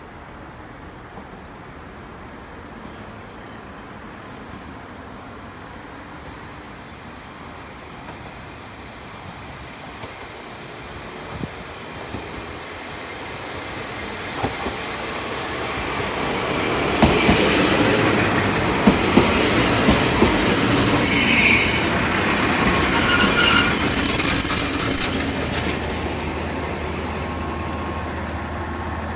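A JR Kyushu KiHa 40-series diesel railcar approaches and pulls in. Its rumble builds over the first half, with its wheels clacking over rail joints. A loud, high wheel-and-brake squeal comes briefly near the end as it slows alongside, then the engine settles into a steady low hum as the car stands.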